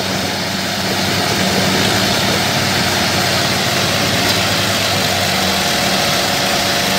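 Two diesel tractor engines, a Farmtrac 45 hitched in front of a Mahindra 575 DI, running together under load as they pull a loaded sugarcane trolley, a steady loud engine drone.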